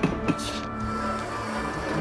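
Background music score of held, steady tones, with a short click at the start and a brief hiss about half a second in.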